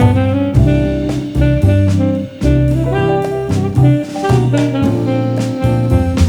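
Instrumental bossa nova music: a held melody line over a walking bass and a steady light drum beat.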